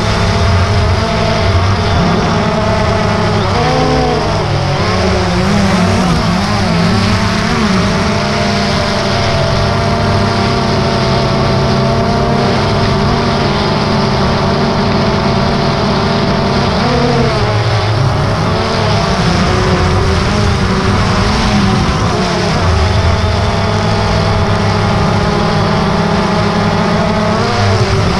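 DJI Phantom 2 quadcopter's motors and propellers, heard from the camera on the drone itself: a loud, steady buzzing whine of several pitches at once, which bend up and down together as the drone manoeuvres, a few seconds in, about two-thirds of the way through and again near the end.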